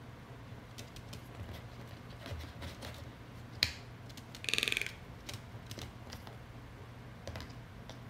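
Toco toucan's bill tapping and knocking on a paperboard phone box and tabletop: scattered light clicks, a sharper click about three and a half seconds in, then a brief buzzy rattle just after.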